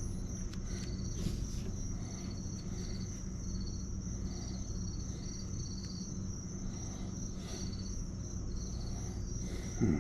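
An insect, likely a cricket, chirping in short repeated trains over a steady low electrical hum, with a few faint handling clicks.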